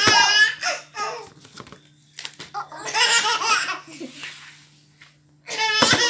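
Baby laughing in high-pitched bursts that break off and start again, with a breathy stretch in the middle. A sharp knock comes near the end, just before more laughter.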